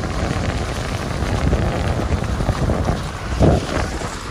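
Wind buffeting the microphone over the low rumble of an off-road vehicle on the move, with a thump about three and a half seconds in.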